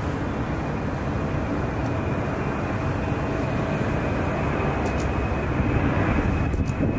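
Boeing 747 freighter's four turbofan engines at takeoff thrust during the takeoff roll: a steady jet rumble and rush with a faint whine, growing slowly louder as the aircraft accelerates.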